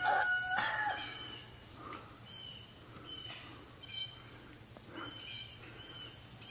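A rooster crowing, the held call ending just under a second in, followed by a scattering of short, high bird chirps.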